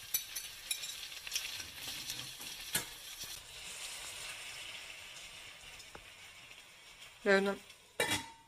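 Sliced zucchini and onion sizzling in olive oil in a frying pan, with a utensil clicking against the pan as it is stirred, mostly in the first few seconds.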